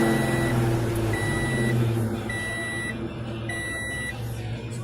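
A car's warning chime beeping steadily, about once a second, five even beeps at one pitch, over a low steady hum.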